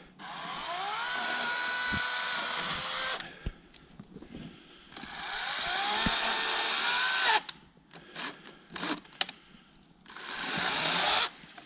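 Harbor Freight LYNXX 40V cordless electric chainsaw cutting limbs in three bursts. Each time the motor whines up to speed, holds a steady pitch and then winds down. A few short cracks come between the second and third bursts.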